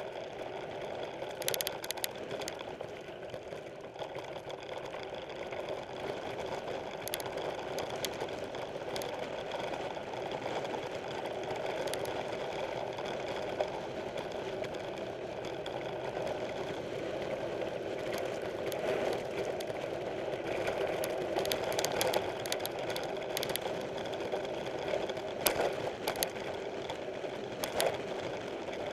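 Mountain bike rolling over a dirt trail: a steady rumble of tyres and drivetrain with rattles, and sharp knocks from bumps now and then, heard from a camera mounted on the bike or rider.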